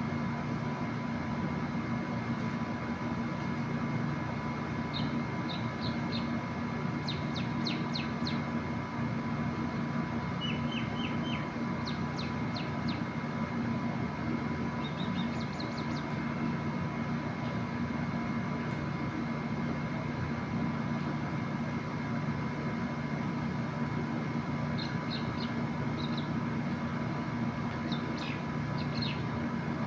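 Small birds chirping in short quick series of high notes, several times, over a steady mechanical hum.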